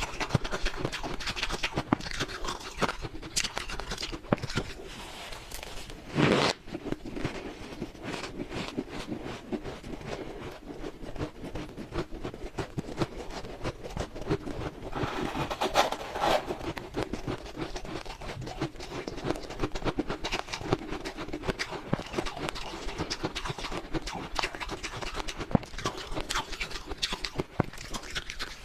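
A person chewing mouthfuls of shaved freezer frost ice: dense, fast crunching that never lets up. A louder burst comes about six seconds in and another about fifteen seconds in.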